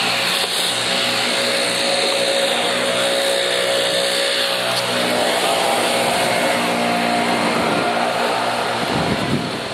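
A motor vehicle engine running steadily close by, with road noise. Wind buffets the microphone near the end.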